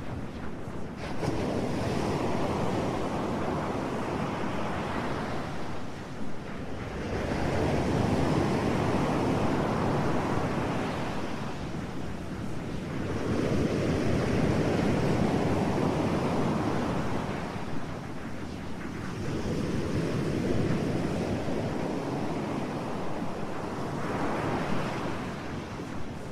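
Ocean surf: waves rolling in and washing up the shore, each surge swelling and fading away, about one every five to six seconds.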